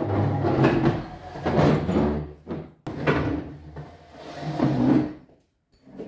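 Household cleaning sounds: irregular rubbing and knocking of things being handled, in bursts about a second long that stop about five seconds in.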